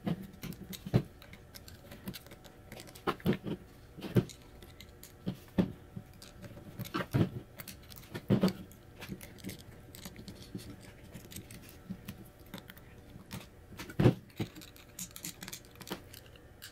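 Irregular small metallic clicks and taps as a steel spiral lock is worked into the wrist-pin groove of an aluminium piston with a small screwdriver, and the piston and rod assembly is handled on the bench.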